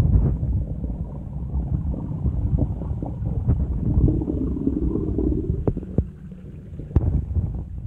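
Muffled low rumbling of pond water heard through a submerged camera, with a few sharp clicks near the end.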